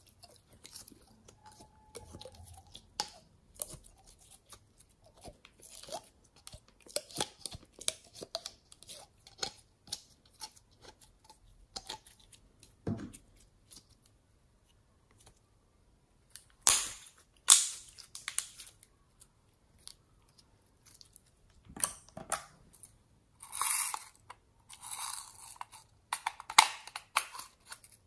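Glossy pink slime squeezed from a soft plastic bottle and stretched and pressed between fingers: a run of small sticky crackles and pops, with louder bursts of crackling in the second half.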